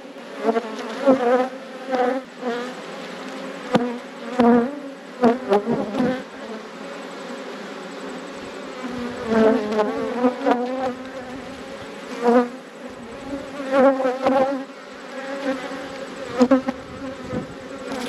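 Honeybees buzzing over an opened hive: a steady drone of the colony, with single bees flying close past the microphone again and again, their buzz rising and falling in pitch as they pass.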